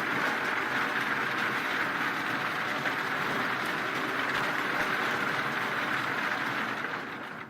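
Wood debarker machine running steadily as it peels logs: a continuous mechanical clatter and rumble that fades out near the end.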